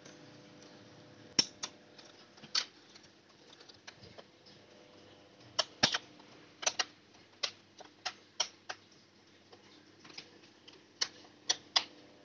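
Sharp plastic clicks and snaps as the plastic front bezel of a laptop SSD caddy is pressed into the optical drive bay, clip by clip. There are about fifteen irregular clicks, the loudest about a second and a half in and just before six seconds.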